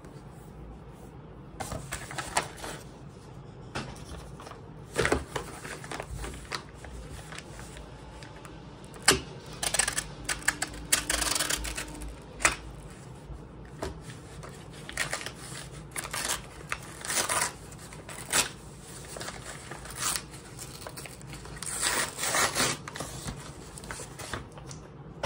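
Brown paper mailer rustling, crinkling and tearing as it is opened and a paperback book is slid out, in irregular bursts. A sharp knock about nine seconds in is the loudest sound.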